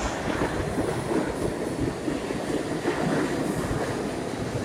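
New York City Subway train running past through an underground station: a steady rumble of the cars with a few clacks of wheels over the rail joints.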